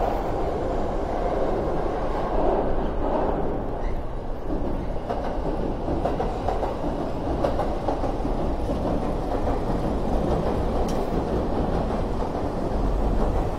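Steady city noise: a continuous low rumble of passing road traffic.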